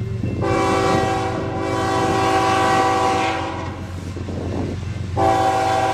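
Canadian National freight locomotive's air horn sounding for the level crossing ahead: one long blast, then a second blast starting near the end, over the steady low rumble of the approaching train.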